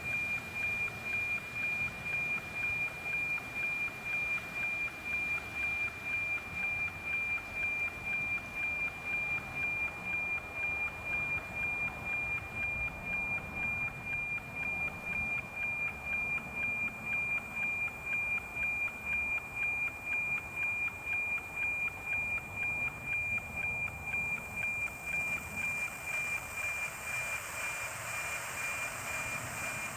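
NOAA 19 weather-satellite APT signal, FM-demodulated by an RTL-SDR receiver and played as audio. It is a steady high tone that ticks about twice a second, one tick per image line. Hiss grows near the end.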